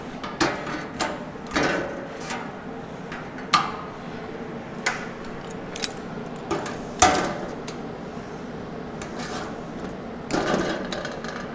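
Intermittent clinks, knocks and scrapes of metal parts and tools being handled on a small fixture table, the loudest knock about seven seconds in.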